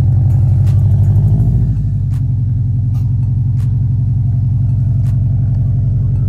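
2020 Subaru WRX STI's turbocharged flat-four engine running with a deep, steady exhaust note. It eases off slightly about two seconds in.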